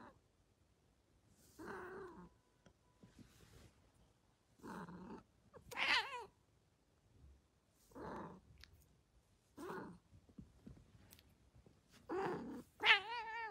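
A cat giving a series of short pitched cries, about eight in all, each under a second, with louder wavering ones about six seconds in and near the end.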